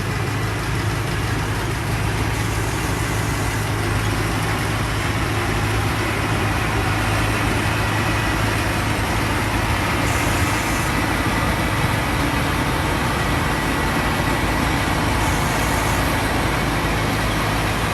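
TAMCO combine harvester's engine running at a steady, unchanging pace.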